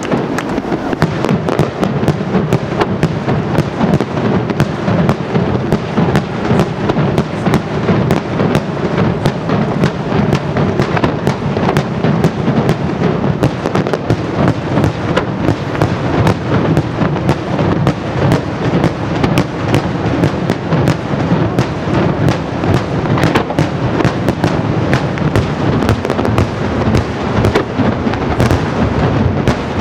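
Daylight fireworks bursting into coloured smoke in a continuous rapid barrage. Sharp bangs come many times a second without a pause.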